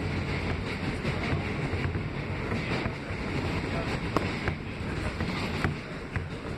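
R160B subway car running at speed, a steady rumble of steel wheels on rail with a few sharp clicks in the second half.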